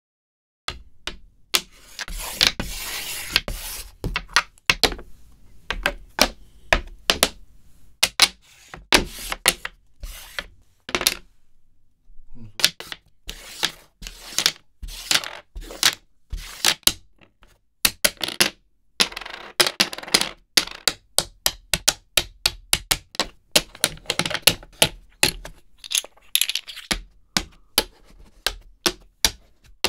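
Backgammon checkers being played on a board: a quick, irregular run of sharp clacks as pieces are set down and knocked together, with a few longer stretches of checkers scraping across the board.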